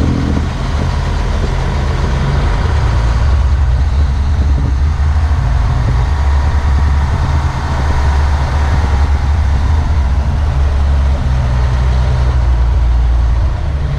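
Nissan Diesel truck-crane diesel engine running as the crane is driven, a steady low rumble heard inside the cab.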